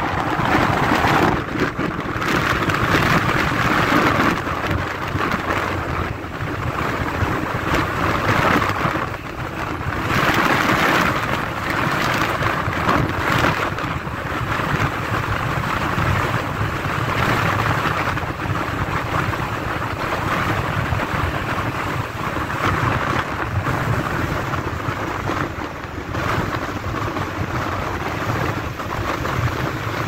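Strong storm wind blowing and buffeting the microphone, a steady roar that swells and eases in gusts every few seconds.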